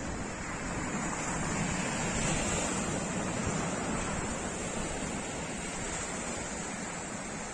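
Steady rush of surf washing onto a sandy beach, swelling slightly a couple of seconds in, with wind rumbling on the microphone.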